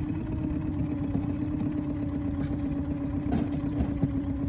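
Boat motor running steadily at idle, a constant low hum, with a few faint clicks in the second half.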